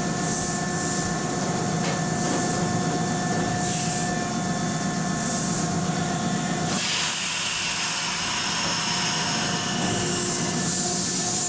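Ex-Keisei 3300-type electric commuter train standing at the platform, its equipment giving a steady hum and whine with a faint high pulse about every second and a half. The sound changes to a broader, steady hiss about seven seconds in.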